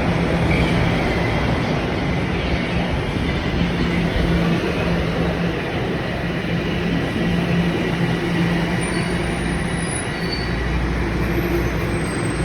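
Toronto TTC subway train running on the rails: a steady, loud noise of wheels and motors with a low hum that comes and goes, and faint high wheel squeals about nine seconds in.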